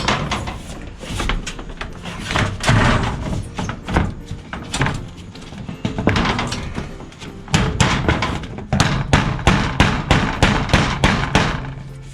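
A rapid series of sharp knocks and bangs, coming in close, fairly regular runs in the second half.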